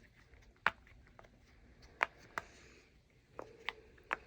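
A fidget toy being handled and pressed, making about half a dozen sharp clicks at irregular intervals.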